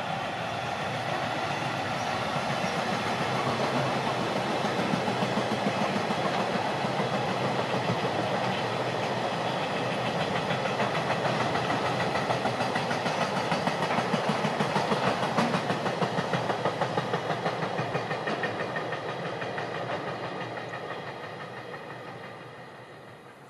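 Freight train of tank wagons hauled by an EF210 electric locomotive running past: a steady rumble with the wheels clacking over rail joints in a fast, regular rhythm, fading away over the last few seconds as the train goes off.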